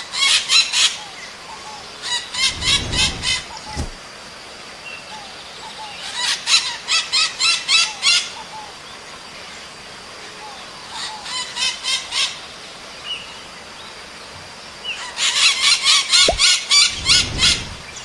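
Maritaca parakeets calling in bursts of rapid repeated shrill notes, five bouts a few seconds apart, the longest near the end. The calls are answered back and forth between birds.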